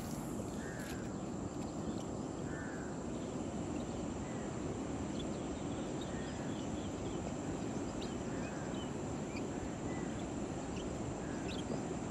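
Outdoor riverside ambience: a bird gives a short call about every one and a half to two seconds, with faint higher chirps of other birds or insects, over a steady low rushing background.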